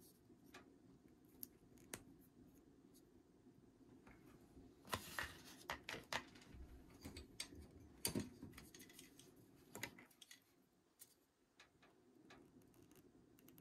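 Faint clicks and light rustling from small handling noises as a thermal paste syringe and its packaging are handled on a wooden desk, busiest in the middle with a run of sharper clicks.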